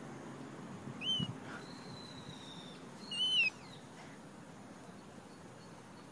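Moluccan cockatoo giving two short, high-pitched chirps about two seconds apart, each quickly rising and falling in pitch.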